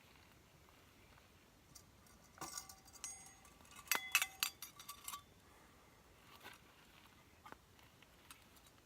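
Small metal objects clinking and jingling with short ringing tones, in two clusters about two and a half and four seconds in.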